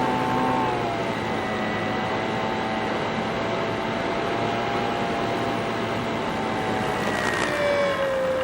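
Model airplane's motor and propeller running in flight, heard over steady air rush, with the pitch easing down a little just after the start and again near the end as the throttle is pulled back.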